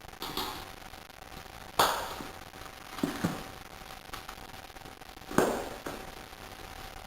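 Hand tools knocking against the wheel and tyre during a rear tyre change: a series of sharp, separate knocks a second or more apart, with a quick double knock about three seconds in.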